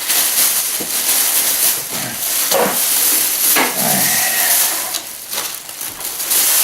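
Plastic protective bag being pulled off a coffee machine, with continuous crinkling and rustling.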